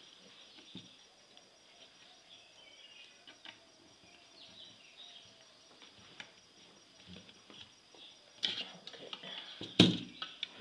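Small clicks of screwdriver work as an amplifier board is screwed down into its cabinet, with faint chirping in the background. Near the end come two sharp knocks, the second, about ten seconds in, the loudest.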